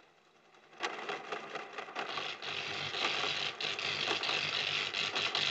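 Film sound effect of a robot's head circuitry overloading: a dense electrical crackle of rapid clicks with a low pulsing hum, starting about a second in and growing louder. It marks the robot locked up by conflicting orders, unable to fire on a person.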